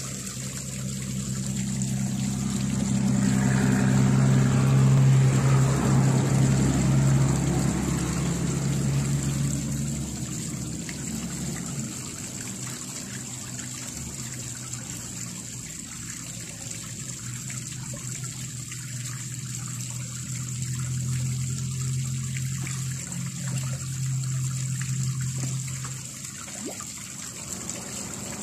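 Water trickling and splashing into a small garden fishpond, with a steady low hum underneath that stops near the end.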